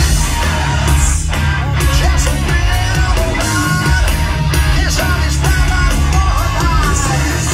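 A live hard rock band playing loud through a club PA: distorted electric guitars, bass and drums, with a male lead vocal.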